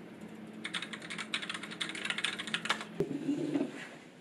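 Fast typing on a backlit computer keyboard: a dense run of key clicks that ends with one sharp click about three seconds in.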